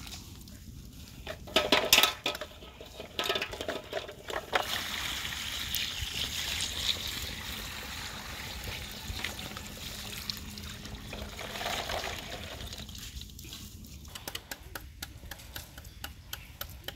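A scoop of boiled eggs tipped into an aluminium bowl, clattering loudly about two seconds in. Then water is poured steadily over the eggs in the bowl for several seconds, and light clicks follow near the end.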